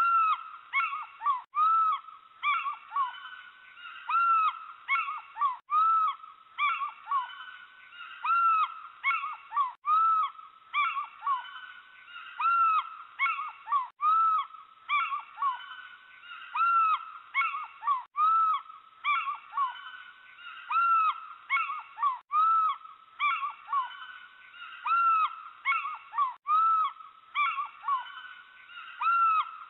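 Owl calls: series of short notes that rise and fall in pitch, several voices overlapping. The same few-second recording repeats over and over, with a brief break about every four seconds.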